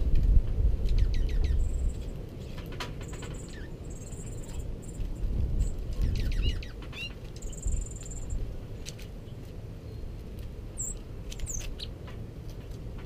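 Small songbirds feeding on seed on a snowy wooden railing: short high chirps and sharp chip calls come now and then, with small clicks of beaks pecking at the seed. A low rumble is heard during the first two seconds.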